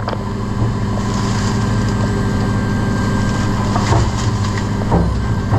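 Steady low machinery hum on board the yacht, with rustling and a few knocks as bagged rubbish is shoved into the lazarette behind bungee cords, the knocks about four and five seconds in.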